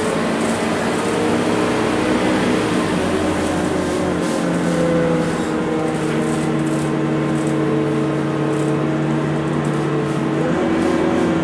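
Scania K230UB city bus's diesel engine heard from inside the passenger cabin, running under way with a steady drone; its pitch shifts near the end.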